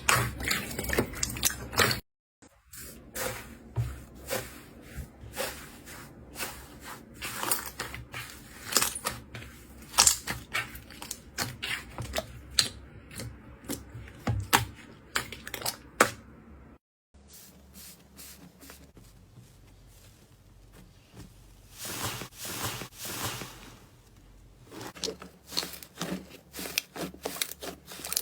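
Slime being played with: a steady stream of small sticky crackling clicks and pops, broken by abrupt cuts to silence about two seconds in and again past the middle.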